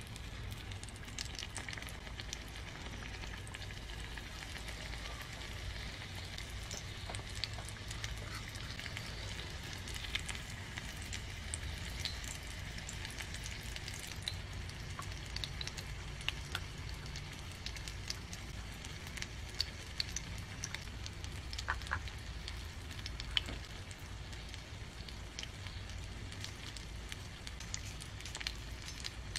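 Food frying in a miniature pan: a steady sizzle with scattered crackles and pops throughout.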